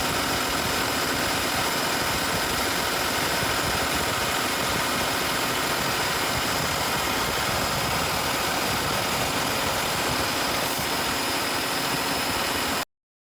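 Cummins diesel engine of a Volvo 780 truck idling, a loud, steady running sound that cuts off suddenly near the end.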